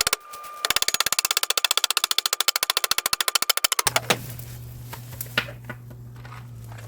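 Impact driver hammering in a fast, even rattle of clicks for about three seconds, driving a connector into the fence post mender, then stopping. A low steady hum runs on once it stops.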